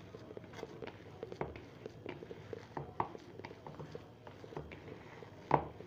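A hand kneading and squishing a soft mashed-potato mixture in a plastic bowl: irregular soft squelches and small taps, with one louder knock about five and a half seconds in.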